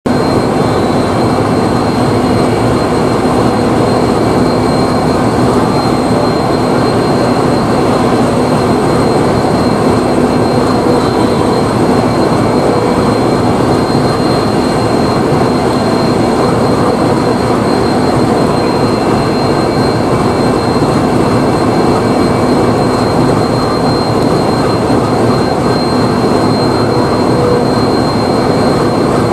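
Diesel generator sets of a Shatabdi Express end-on-generation power car running with a steady drone and a constant high whine, the generator belching heavy diesel smoke.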